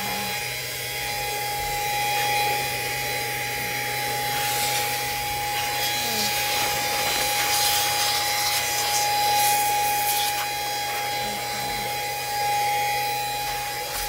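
Brigii cordless handheld vacuum running steadily with a constant high whine, its brush and nozzle scrubbing and rubbing over the car's dashboard and trim in scratchy bursts through the middle.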